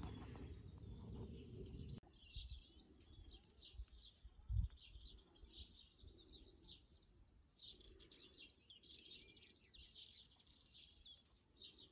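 Faint small birds chirping and twittering in quick, repeated short notes, with a soft low thump about four and a half seconds in.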